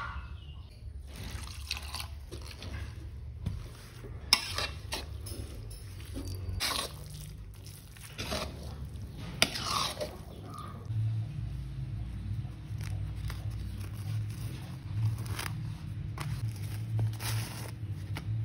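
Food-preparation handling noises: scattered taps, short scrapes and two sharp clicks over a low hum, with a steady low tone coming in about halfway through.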